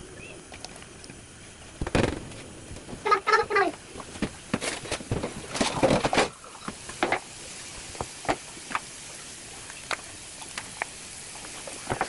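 Diced vegetables scraped off a plate with a silicone spatula and dropping into a non-stick frying pan: irregular taps, clicks and patter of the pieces landing, with a brief squeak of the spatula near the start, then only occasional light ticks.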